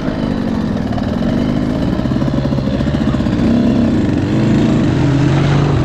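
Two-stroke 300 cc TPI enduro motorcycle engine running at low revs, its pitch wavering slightly and rising a little about three and a half seconds in.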